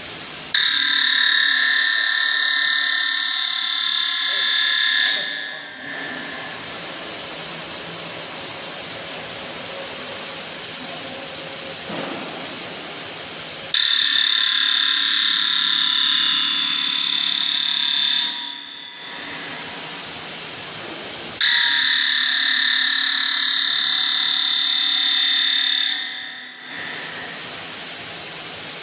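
Woodworking CNC processing center running, with a loud high-pitched whine of several steady tones that comes on three times, about five seconds each, and a quieter steady machine noise in between.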